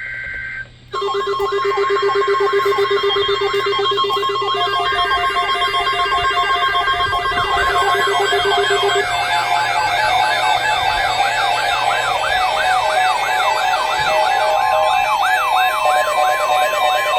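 Several electronic emergency alert tones sounding over one another: steady high tones, a rapidly pulsing lower beep and a siren-like warble rising and falling a few times a second. They start abruptly about a second in after a brief dropout.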